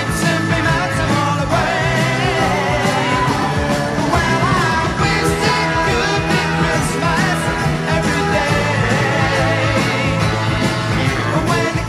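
A pop-rock song: a singing voice over a band with a steady beat and bass line.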